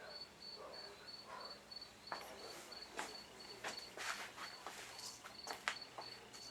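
A cricket chirping steadily in short, evenly spaced high-pitched pulses, about three a second. From about two seconds in, a run of irregular clicks and rustles.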